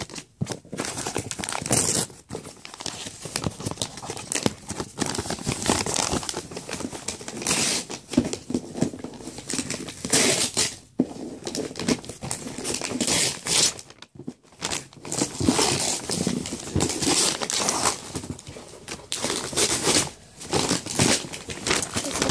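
Paper packaging being handled, crinkling and rustling in irregular bursts with some tearing, as a doll's box is unpacked. There are short pauses about halfway through.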